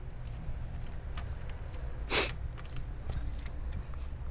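Small metal clicks and taps of a hand tool working the engine mount nuts loose in a car's engine bay, with one short rushing scrape about two seconds in, over a low steady hum.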